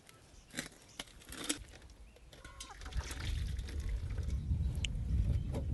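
A slaughtered chicken being dunked and moved about in a pot of hot scalding water to loosen its feathers: faint knocks and water sloshing, with a low rumble building in the second half.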